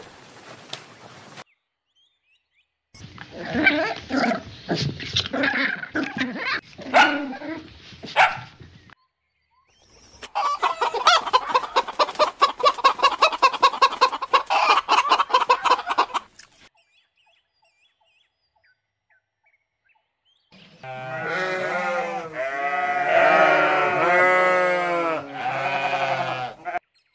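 Farm animals calling in three separate bursts with silences between: fowl clucking, and a goat bleating in a wavering, pitched call near the end.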